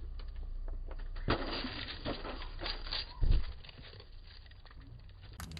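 Rustling and crinkling handling noises with scattered light clicks and a dull thump a little after three seconds in.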